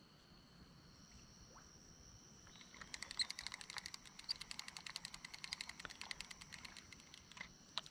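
Fishing reel being cranked to retrieve the line after a short cast, a rapid run of even clicks, about ten a second. It starts about three seconds in and stops near the end.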